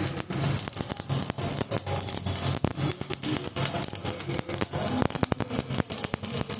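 Electric arc welding: the arc crackling and sputtering irregularly over the welding machine's steady low transformer hum.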